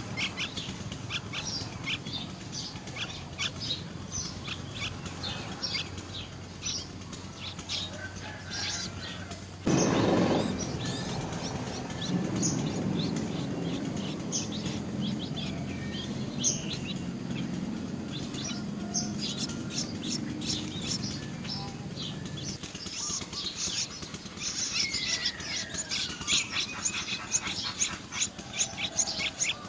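Small birds chirping, with many short, quick calls throughout and one falling call about 25 seconds in. About ten seconds in, a loud low rumble starts suddenly and runs for about twelve seconds under the chirping.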